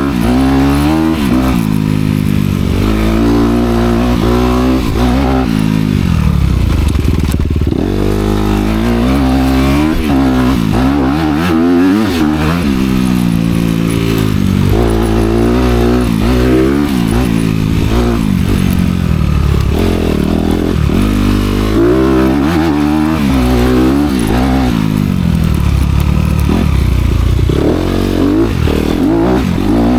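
Honda CRF250R dirt bike's single-cylinder four-stroke engine being ridden hard, its pitch rising and dropping over and over as the throttle is worked on and off. The exhaust note comes through the bike's dual pipes.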